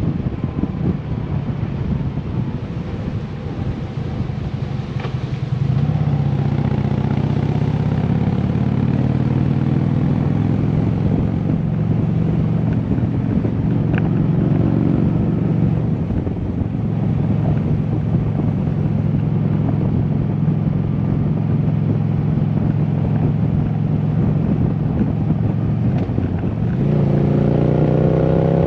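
Harley-Davidson V-twin motorcycle engine running under way, with wind rushing over the microphone. The engine pulls up in pitch about five seconds in, holds steady with a brief dip around the middle, and revs up again near the end.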